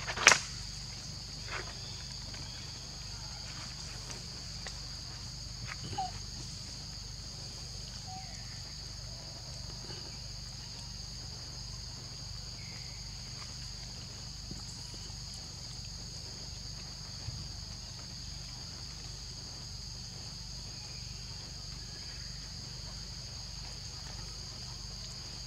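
Steady, high-pitched chorus of forest insects, with one sharp click near the start and a couple of fainter ones.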